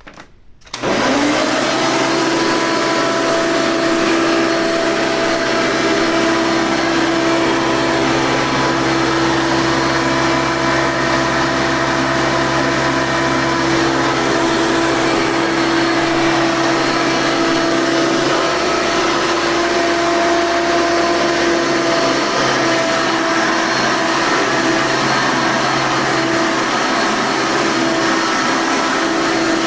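Hoover Legacy upright vacuum cleaner switched on about a second in, its motor spinning up quickly and then running at a steady, loud whine with airflow rush.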